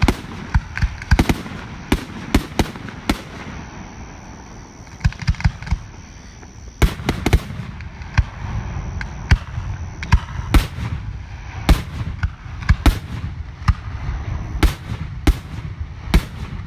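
Fireworks display: aerial shells and rockets going off in an irregular string of sharp bangs, some coming close together. The bangs let up for about three seconds a few seconds in, then start again.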